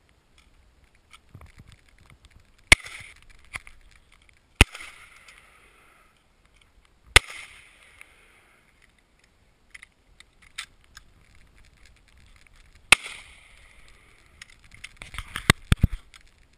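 Four shots from a silver semi-automatic pistol, fired at uneven intervals, each followed by a short echoing tail. Near the end comes a quick run of sharp cracks and clicks.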